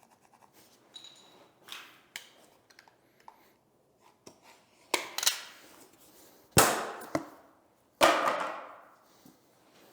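Three loud, sharp knocks about a second and a half apart, each with a short fading tail, after a few seconds of light clicks and scraping.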